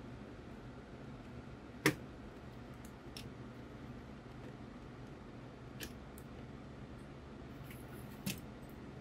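Plastic housing of a Sony WM-FS495 Walkman being handled and pressed together: one sharp click about two seconds in, then a few fainter clicks and taps, over a steady low hum.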